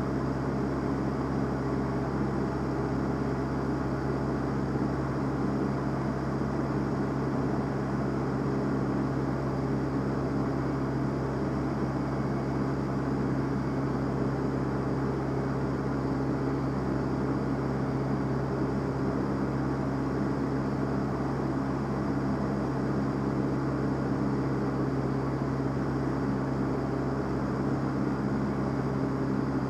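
Van's RV-7A light aircraft's piston engine and propeller droning steadily in flight, heard from inside the cockpit, with a constant pitch and level throughout.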